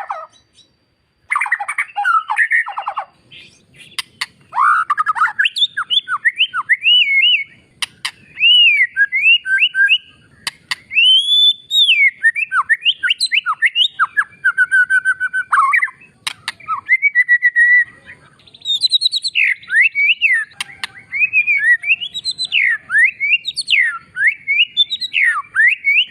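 White-rumped shama singing loudly in long, varied phrases of rising and falling whistles and quick runs of notes, broken by short pauses, with a few sharp clicks among them.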